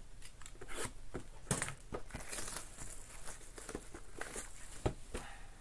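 Plastic shrink wrap on a sealed box of trading cards crinkling and tearing as it is pulled off, a run of irregular crackles and rustles.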